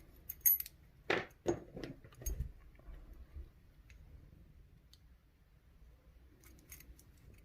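Small metallic clicks and knocks from working a padlock's interchangeable core with its key and drawing the core out. There are several sharp clicks in the first couple of seconds, then a lull with a few faint ticks later.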